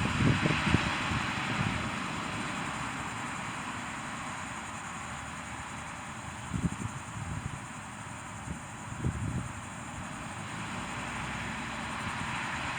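Whelen WPS-4004 electronic outdoor warning siren sounding its test alert tone, heard from a distance as a steady, echoing drone. It fades for several seconds and then swells again. Wind buffets the microphone a few times.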